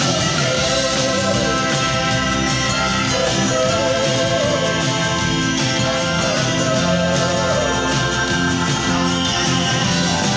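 Live band playing an instrumental passage between verses, with a wavering lead melody line over guitar and a steady backing.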